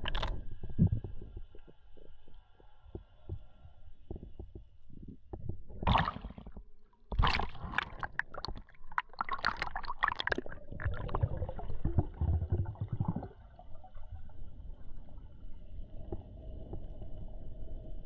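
Underwater water noise as picked up by a camera in its housing: low muffled thumping and rumbling, with louder bubbling and splashing about six seconds in and again from about seven to ten seconds in, over a faint steady high whine.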